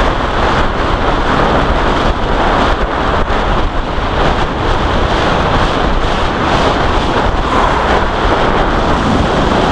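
Heavy, steady wind buffeting on the microphone of a bicycle-mounted camera from the rush of air on a fast downhill descent.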